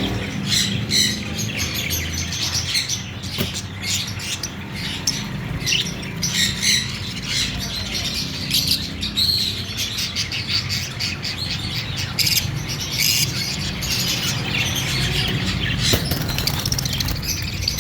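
Fischer's lovebirds chirping, a continuous stream of quick, high-pitched chirps over a steady low hum.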